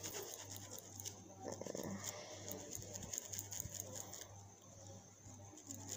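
Pencil scratching and scribbling on paper, a faint run of quick scratchy strokes close to the microphone, over a steady low hum.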